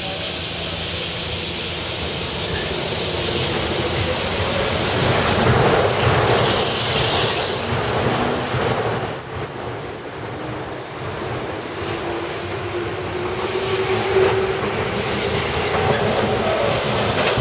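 JR West 205 series electric commuter train pulling out and running past at close range: traction motors and wheels running, with wheels clattering over the rail joints. The sound swells about six seconds in, dips briefly around nine seconds, then builds again toward the end.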